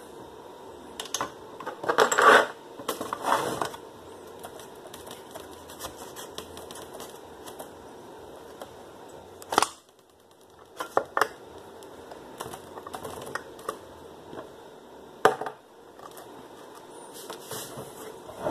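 Metal parts of an old Briggs and Stratton single-cylinder engine being handled and fitted together: scattered clicks and clinks of the piston, connecting rod and crankshaft against the cast block. There is a longer rattle about two seconds in and sharp single knocks near the middle and about fifteen seconds in.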